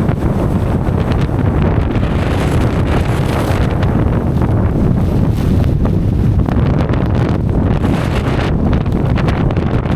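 Strong mountain wind blasting across the camera microphone, loud and steady.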